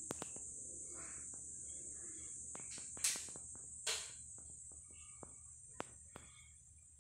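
Faint, steady high-pitched buzz, with scattered light clicks and two louder knocks about three and four seconds in.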